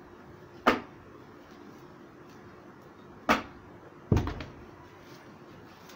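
Three sharp knocks as a small cardboard parcel is opened and handled on a table. The last, about four seconds in, is a quick double knock with a low thud.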